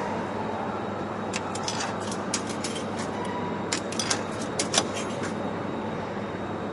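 Ticket vending machine mechanism clicking and rattling: a run of sharp clicks over about four seconds, the loudest near the end of the run, over steady background noise.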